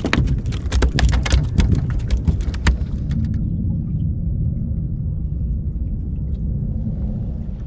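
A rapid, irregular run of sharp clicks and knocks while a hooked tailor is brought in. They stop about three seconds in, leaving a steady low rumble.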